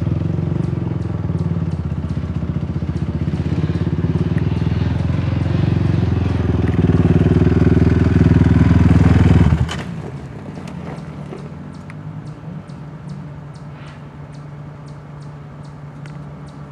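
ATV engine running hard close by, growing louder, then cutting off suddenly about ten seconds in. After that a quieter ATV engine keeps running steadily.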